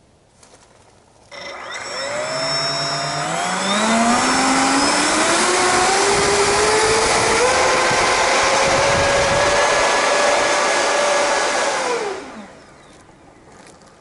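Four 70 mm Dr Mad Thrust 11-blade electric ducted fans on an RC airliner model spooling up from a sudden start, their several whines rising together in pitch over a few seconds with a loud airy rush. They hold at high power, then are throttled off about twelve seconds in and wind down.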